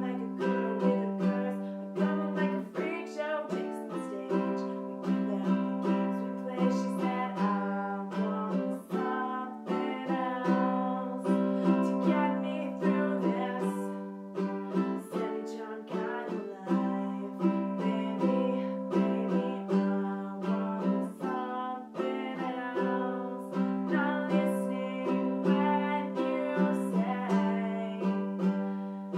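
A plucked string instrument playing a continuous run of picked notes over a steady low note.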